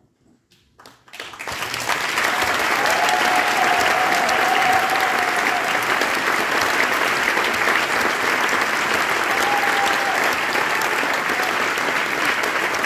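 Audience applauding: a few scattered claps about a second in, then steady, dense clapping.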